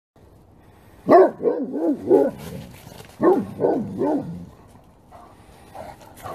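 Great Pyrenees barking: a quick run of about five barks, then a pause and three more.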